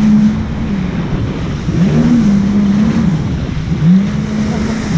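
Jet ski engine running at speed, its steady tone dipping and climbing back a few times, from about two seconds in, under a heavy rush of wind and water.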